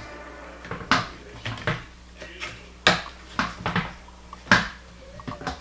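Hard plastic clicks and knocks as the battery holder of a Kohler LED nightlight toilet seat is handled and pressed into the seat's plastic hinge on the ceramic bowl: a string of sharp knocks, the loudest about one, three and four and a half seconds in.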